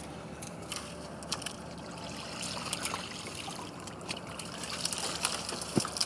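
Lake water sloshing and dripping as a carp weigh sling is pulled through the shallows and lifted out, with water draining off it in small scattered splashes and drips.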